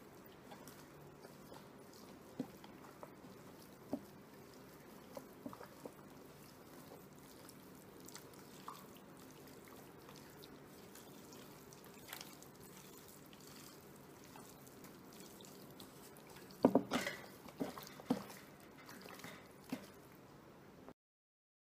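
Hands working a spice rub into raw chicken pieces in a stainless steel pan: faint, soft sounds of the meat being squeezed and turned, with scattered small clicks. Near the end comes a louder run of sharp knocks.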